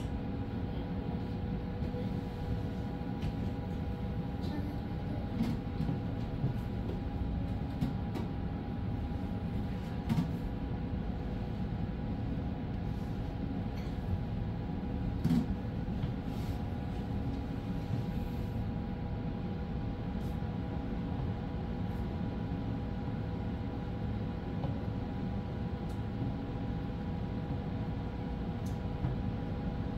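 Apollo 1100 autonomous bus driving, heard from inside the cabin: a steady low rumble with two steady tones running through it and a few light knocks and rattles, the loudest about 10 and 15 seconds in.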